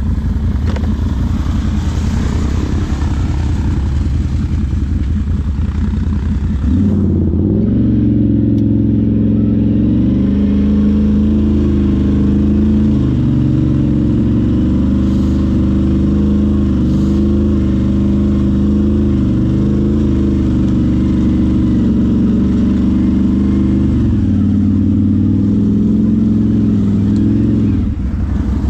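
ATV engine running, low and rough at first, then revving up about seven seconds in and held at a steady higher pitch with small dips as it pulls. It eases back near the end.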